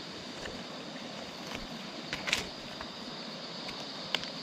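Steady high-pitched drone of insects, with a short rustle about two seconds in and a sharp click near the end.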